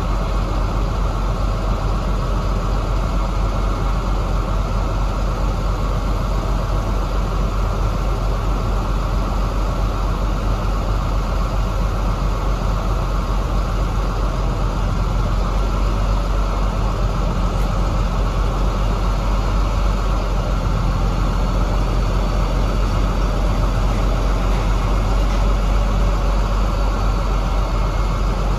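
KAMAZ truck's diesel engine running steadily with a deep, even drone, a little louder in the second half.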